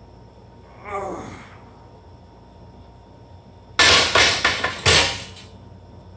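A man's short strained groan, falling in pitch, about a second in. Near the end comes a loud clatter of several quick metal knocks lasting about a second: a loaded barbell being racked onto the bench uprights after the last rep of a bench-press set.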